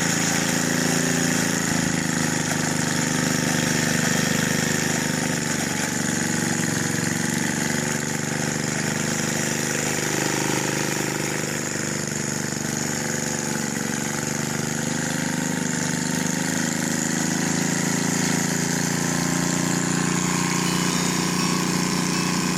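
Small engine of an old garden tiller running steadily at an even speed.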